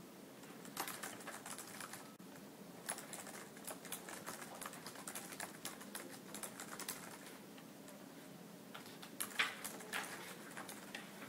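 Typing on a computer keyboard: quiet, irregular runs of key clicks with short breaks between them.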